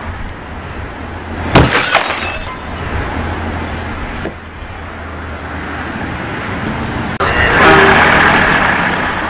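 Road traffic running steadily, broken by a sudden car collision about a second and a half in: a loud bang with breaking, cracking glass. A second loud crash with crackling comes after about seven and a half seconds.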